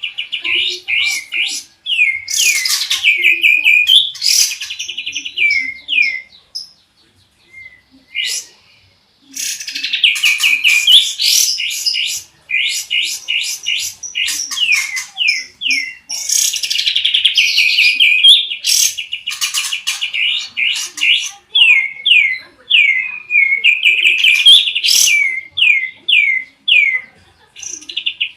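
Kapas tembak and canary songbirds singing: long rapid runs of repeated down-slurred whistled notes, with a gap of a few seconds about a quarter of the way in.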